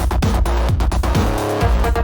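Instrumental electronic industrial music with a driving techno beat: a heavy bass kick drum and noisy percussion hits in a fast, regular rhythm.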